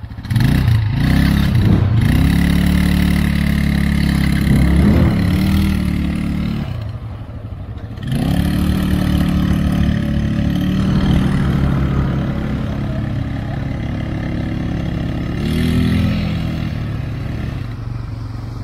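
ATV engine revving up and running under throttle. It drops back toward idle about seven seconds in, then climbs again about a second later, with another surge in revs near the end.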